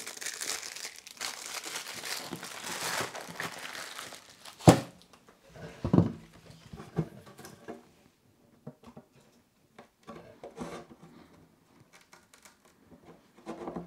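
Rustling and crinkling of a fabric chisel roll as a chisel is drawn out and the roll folded, lasting about four and a half seconds; then a sharp wooden knock as the wooden chair is handled, a few more knocks about a second later, and faint taps and scrapes of the chisel set into a glued corner joint.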